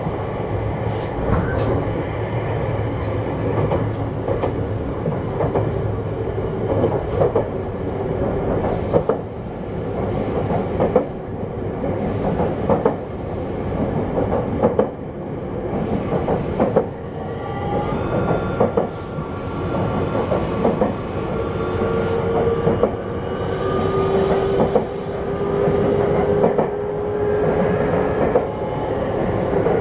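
JR West 321 series electric multiple unit running, heard from inside the KuMoHa 321 motor car with Toshiba traction equipment: steady running noise with the wheels clicking over rail joints. In the second half a whine sets in, one tone of it slowly sinking in pitch.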